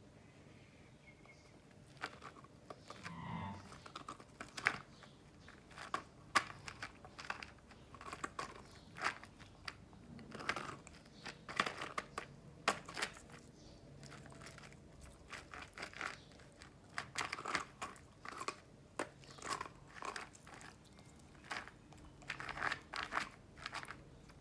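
A dog biting and crunching ice cubes, with irregular sharp crunches starting about two seconds in.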